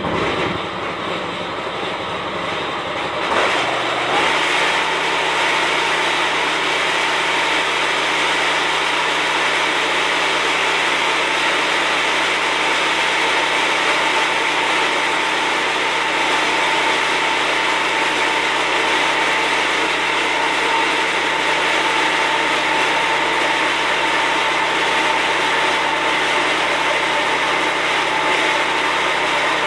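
Portable band sawmill running as its band blade saws an oak log: steady engine and blade noise that steps up about four seconds in, where a steady whine sets in and holds.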